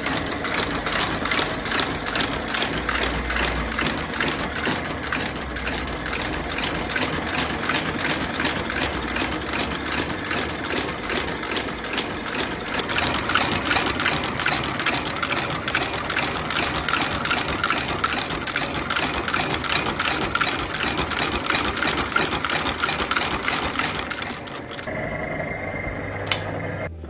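Outsole stitching machine running, its needle and shuttle working a rapid, even stream of lockstitches through a rubber outsole and leather midsole. Near the end the stitching stops and the machine runs on more quietly.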